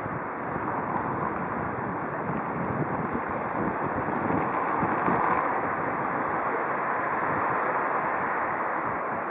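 Wind buffeting the microphone in uneven gusts, a steady rushing noise with no distinct engine or paddle sound standing out.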